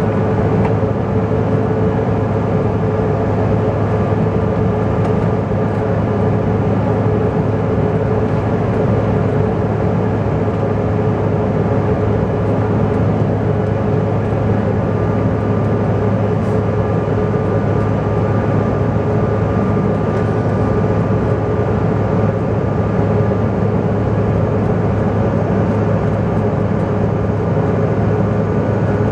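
Cabin noise inside a Bombardier CRJ900 climbing after takeoff: the steady drone of its two rear-mounted turbofan engines and rushing air, with a low hum and a higher whine held steady throughout.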